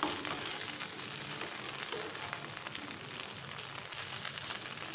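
Oil sizzling in a frying pan, with steady fine crackling, as semolina-and-potato pieces shallow-fry with onions and tempering.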